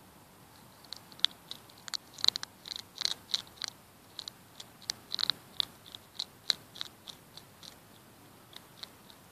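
Hedgehog chewing its food with quick, irregular clicking smacks that start about a second in, come thickest through the middle and thin out near the end.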